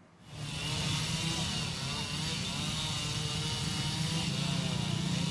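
Small petrol engine running steadily amid street noise, its pitch wavering slightly. It starts about a quarter second in, after a near-silent gap.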